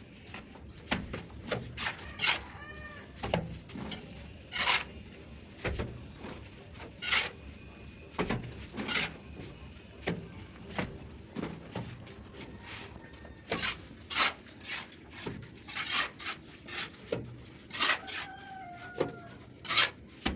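Irregular scraping and slapping strokes of a plastering trowel working cement-sand plaster on a brick wall, roughly one or two a second. A bird calls briefly about two seconds in and again near the end.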